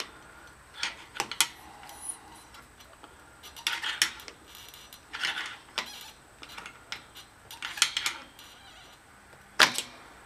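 Irregular small clicks and clinks of hand tools and loose motor parts being handled while an air compressor's electric motor is taken apart, with one sharper knock near the end.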